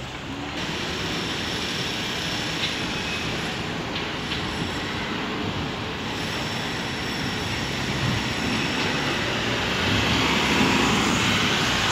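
Street traffic: cars driving past on a wet road, tyres hissing and engines running, growing louder about two-thirds of the way in.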